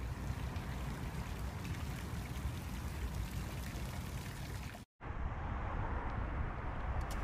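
Stone fountain's water splashing and spilling into its basin, a steady rushing hiss. It cuts off abruptly about five seconds in, and a duller steady outdoor rush follows.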